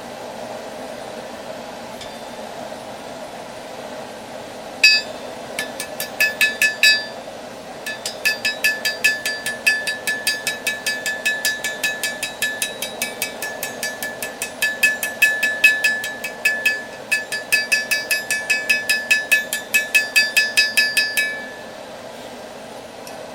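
Hammer blows on a hot railroad spike on an anvil: a run of ringing metal strikes at about three a second, starting about five seconds in, pausing briefly, then going on until near the end. The steady rush of a gas forge burner runs beneath throughout.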